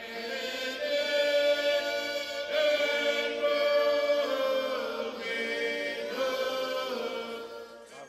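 Church congregation singing a Marshallese hymn together, holding long notes that change about every second.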